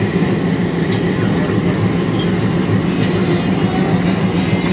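ALCO diesel locomotive's engine idling with a steady low hum, close by. A few faint metallic clinks from the screw coupling being worked between locomotive and coach.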